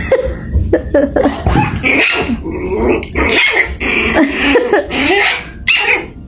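A dog vocalizing loudly in a rapid run of short calls, each bending up and down in pitch.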